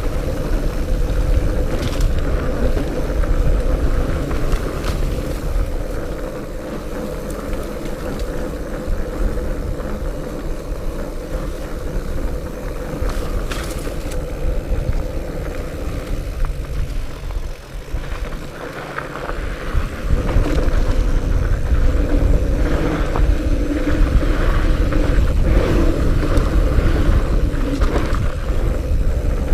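Diamondback El Oso Tres fat bike riding on a dirt trail: the fat tires rolling with a steady low rumble. It drops briefly, then gets louder for the last third.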